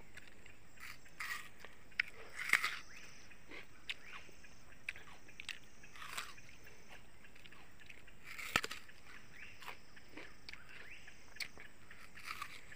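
Faint steady high insect drone with scattered soft crackles and rustles, the clearest about two and a half, six and eight and a half seconds in.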